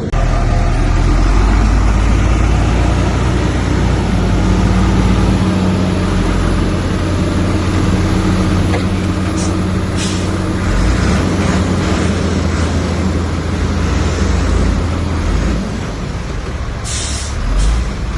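Heavy diesel engine of earthmoving machinery running steadily under load, with short air hisses, the loudest of them near the end.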